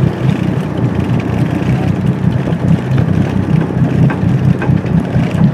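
A schooner's engine running steadily under way, a continuous low hum.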